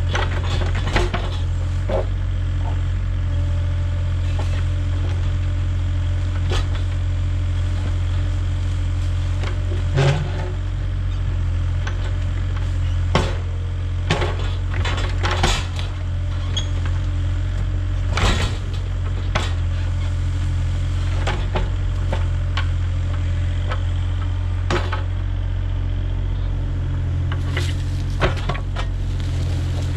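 Compact excavator's diesel engine running steadily while it digs, with scattered metallic clanks and knocks from the bucket and boom as it scoops and dumps dirt.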